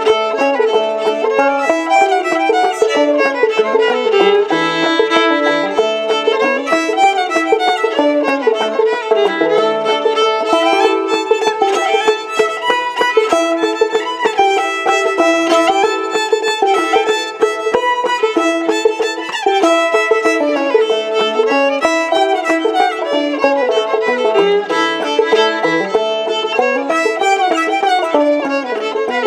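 An old-time Kentucky fiddle tune played on fiddle with clawhammer banjo, the fiddle leading with a steady run of notes over the banjo's plucked rhythm.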